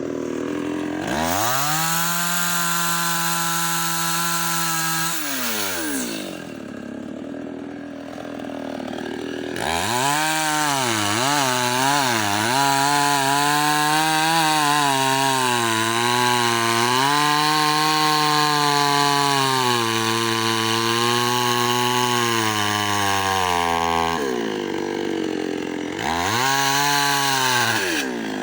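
Two-stroke chainsaw revving to full throttle, dropping back to idle, then running high for about fourteen seconds as it cuts wood, its pitch dipping and recovering under the load. It drops back again and ends with one more short burst of throttle.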